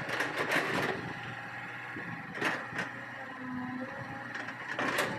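Hitachi EX200 hydraulic excavator running, a low engine hum under a steady high whine, with a few short sharp noises near the start, about halfway through and near the end.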